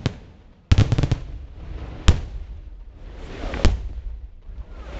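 Aerial firework shells bursting: a rapid string of sharp bangs just under a second in, then single bangs at about two seconds and again about a second and a half later, with a haze of crackle between.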